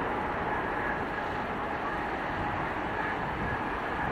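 Jet airliner's engines running: a steady rush with a faint steady whine in it.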